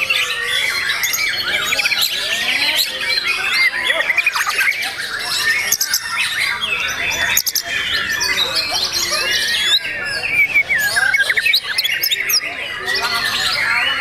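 White-rumped shamas singing, several at once: a dense, unbroken tangle of whistles, gliding notes and fast repeated chatters.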